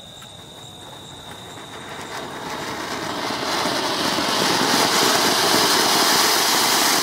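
Sunshine-brand anar (flower-pot fountain firework) hissing as it sprays sparks. It starts as a low hiss, grows over the first few seconds, then holds a loud steady rush.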